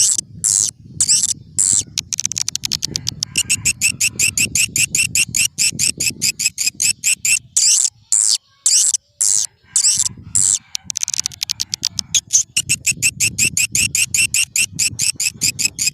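Swiftlet lure-call recording: edible-nest swiftlet twittering, a rapid run of high chirps several a second, over a low rumble that drops out about eight seconds in and comes back about two seconds later.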